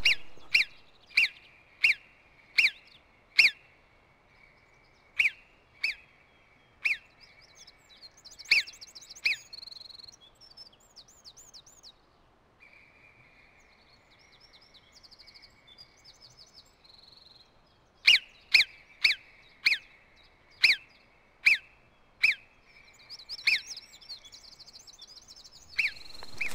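Outdoor ambience: a run of sharp clinks, each with a brief ringing tone, about one or two a second. They stop for several seconds in the middle and then start again, with faint bird chirps behind.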